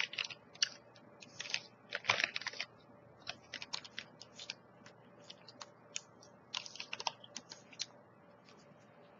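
A person chewing a mango-strawberry granola bar close to the microphone: many small irregular crunchy clicks and a few louder crackly bites, thinning out near the end.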